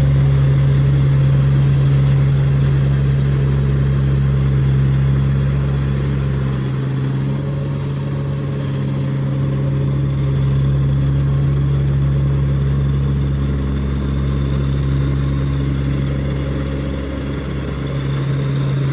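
Yanmar YH323 mini combine harvester's engine running at a steady speed with a constant low hum. The deepest part of the rumble drops away for a couple of seconds about seven seconds in, then comes back.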